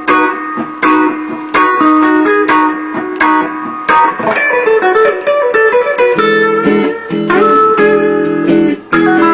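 Solid-body electric guitar played solo: a quick run of picked single notes and double stops, with a few sliding notes around the middle and lower sustained notes over the last few seconds.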